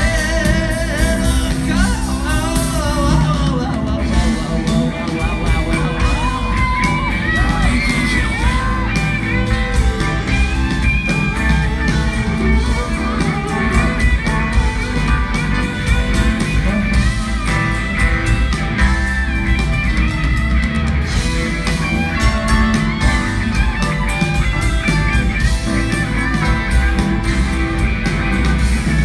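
Rock band playing live through a concert PA, recorded from within the crowd: drums, bass guitar and electric guitar, with a lead line of sliding, bending notes over the top.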